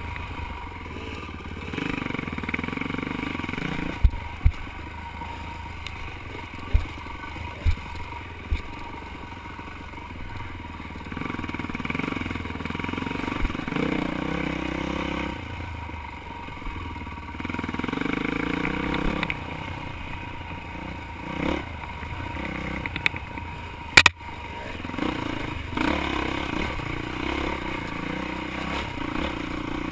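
Dirt bike engine running, revving up and easing off again and again with the throttle. Several sharp knocks cut through it, the loudest about three-quarters of the way through.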